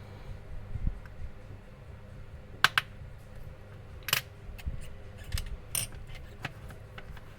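Scattered light metallic clicks and taps of small watchmaking tools and watch-movement parts being handled on a bench, the loudest a quick double click a little before the middle, then a few lighter ones. A low steady hum sits underneath.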